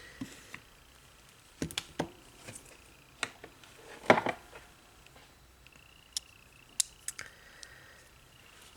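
Scattered light clicks and taps of small nail-stamping tools being handled on a tabletop, the loudest about four seconds in.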